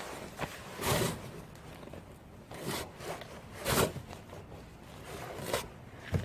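Short scrapes and rustles of hands working metal clutch parts, four or five brief scraping sounds a second or two apart, then a sharp click near the end.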